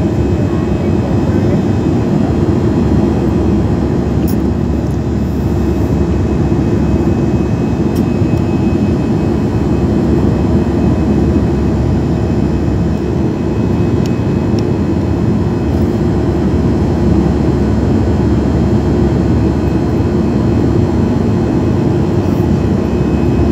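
Airbus A320 cabin noise in flight, heard at a window seat beside the wing: a loud, steady deep rush of jet engine and airflow noise with a faint steady hum, unchanging throughout.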